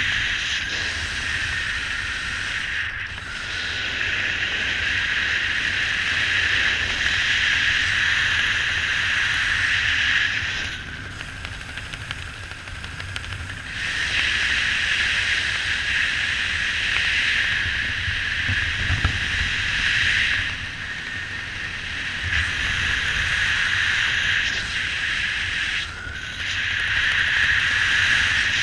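Wind rushing over the microphone of an action camera carried by a skydiver under an open parachute canopy: a steady rush with a low rumble beneath, swelling and easing every few seconds and dropping back for a few seconds near the middle.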